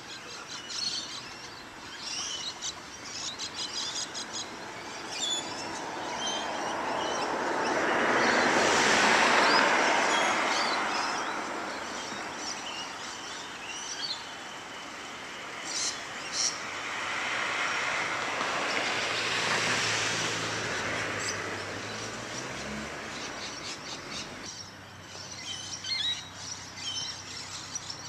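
Cars passing on a street, each a swell of tyre and engine noise that rises and fades away, the first about nine seconds in and the second around nineteen to twenty seconds in. Small birds chirp in the background throughout.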